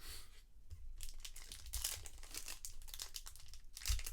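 Trading card pack wrappers crinkling and tearing as packs are ripped open and handled, in quick irregular crackles, with a soft thump near the end.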